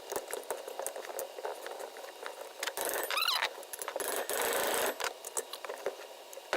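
Small metal brake parts being handled, with light clicks and rattles. About three seconds in there is a short wavering squeak, and around four to five seconds a second or so of rustling hiss.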